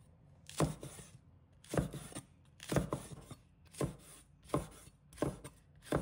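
Chinese cleaver chopping green and red peppers into pieces on a wooden cutting board: separate knocks of the blade on the board, about one a second, coming a little faster toward the end.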